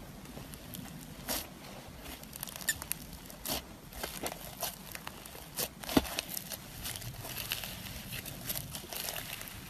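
Thick textured slime being pressed, kneaded and stretched by hand, giving soft sticky clicks and crackles at an irregular pace, with a sharper pop about six seconds in.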